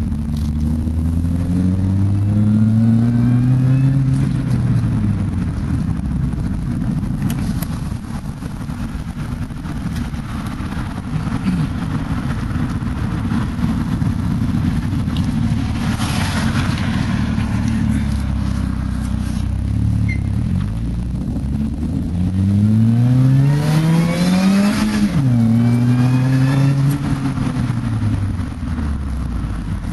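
Car engine running through a Pacesetter aftermarket exhaust, steady in between two runs up in revs: one climbing over about three seconds near the start and falling away, and a second near the end that climbs, drops suddenly and rises and falls once more.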